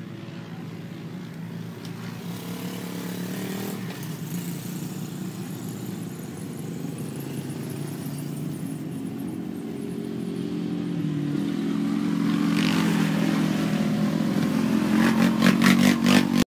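Motor vehicle engines running steadily, their hum shifting in pitch and growing louder. Near the end there is a fast run of rattling clicks, and then the sound cuts off suddenly.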